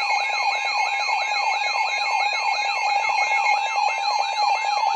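Several weather alert radios sounding their alarms together for an incoming weather warning. A siren-like tone sweeps down in pitch about four times a second over steady alert tones and a warbling high tone.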